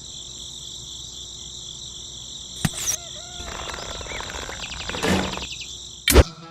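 Insects, crickets, chirring in a steady high-pitched chorus, with a sharp knock about two and a half seconds in, a stretch of rustling in the second half, and a loud knock near the end.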